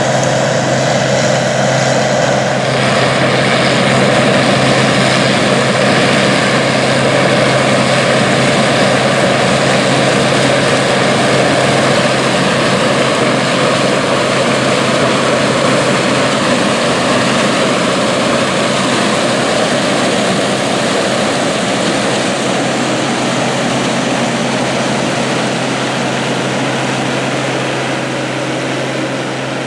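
International 815 combine running steadily while harvesting corn: a constant engine drone under the even noise of the machine working, easing off slightly near the end.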